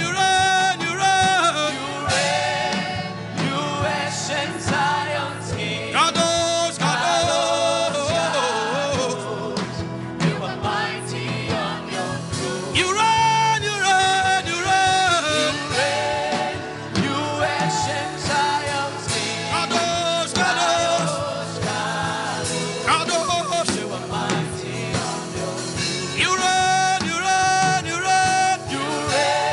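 Gospel worship music: singing with band accompaniment, the sung lines gliding up and down over a steady backing.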